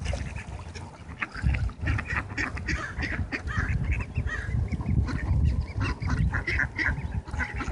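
A flock of mallard ducks quacking in many short, rapid calls, starting about a second and a half in, over a low rumble.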